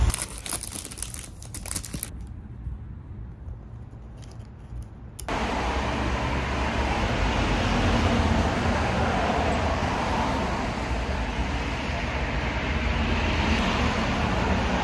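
Road traffic noise from passing cars, a steady rush that jumps suddenly louder about five seconds in.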